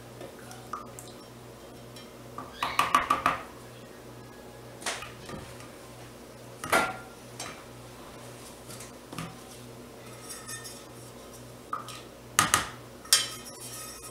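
A utensil knocking and clinking against a plastic mixing bowl in scattered bursts as lye solution and oils are stirred together for cold-process soap, over a steady low hum.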